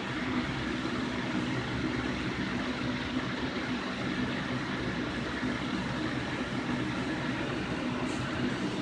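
Light-up ceramic Halloween decoration's sound unit giving out a steady, unbroken hiss with a low hum underneath.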